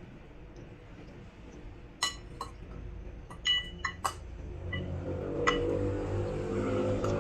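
Metal spoon and fork clinking and scraping against ceramic plates while eating: a handful of sharp ringing clinks through the middle, after a quiet start. A low hum comes in behind them from about five seconds in.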